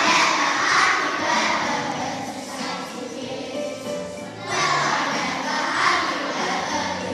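A group of young children singing a song together, with music accompanying them; the singing swells at the start and again about halfway through.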